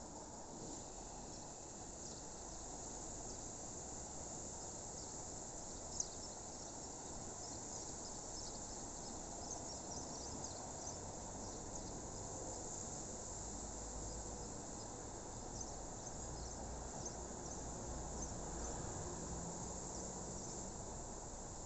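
Crickets chirping in a steady chorus of high, dense ticking over a low background rumble, with one short click about six seconds in.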